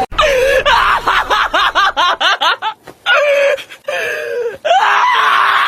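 A high-pitched voice: a quick run of short rising yelps, a few longer calls after a break, then one long cry held at a steady pitch near the end.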